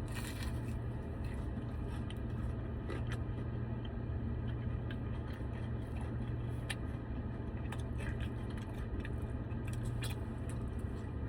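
A person biting and chewing a fried chicken tender, with a few faint scattered clicks and crunches over a steady low hum.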